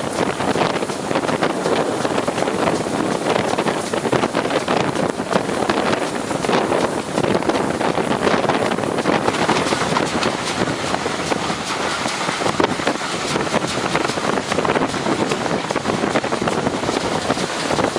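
A train running, a steady dense rumble and rattle with wind on the microphone.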